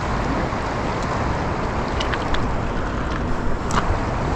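Steady rush of river current, with a few faint sharp clicks.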